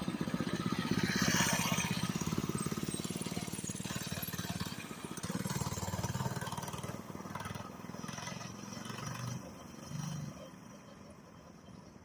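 The small single-cylinder engine of a 99cc minibike runs, its level swelling and easing with the throttle. The sound dies away over the last couple of seconds.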